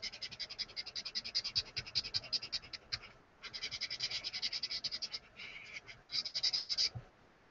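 Paper blending stump rubbed quickly back and forth over graphite shading on sketchbook paper to smooth it out. It makes a fast, scratchy rhythm of about nine strokes a second, in a few runs with short pauses, and stops shortly before the end.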